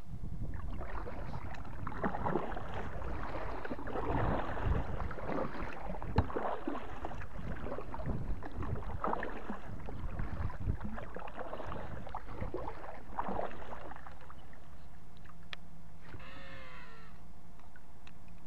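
Kayak paddle strokes swishing through the water, about one a second, stopping about fourteen seconds in. Near the end comes one short pitched call.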